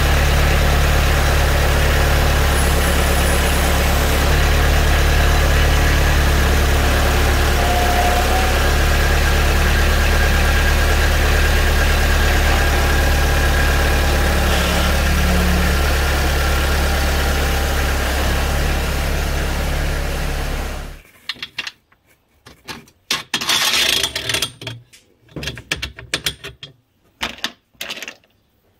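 Compact diesel tractor engine running steadily, then cutting off abruptly about two-thirds of the way through. Scattered light metal clinks and knocks follow.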